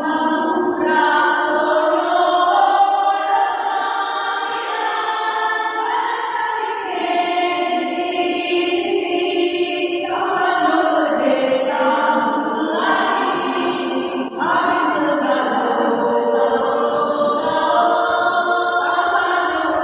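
A choir singing together in several voice parts, holding long sustained notes that change every second or so.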